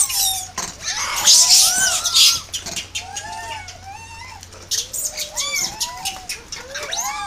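A troop of macaques calling: many short, arching coos and squeaks overlap throughout, with a burst of shrill screams about one to two seconds in.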